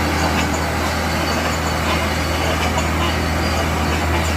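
A large engine-driven air compressor running steadily, with a deep hum at one unchanging pitch.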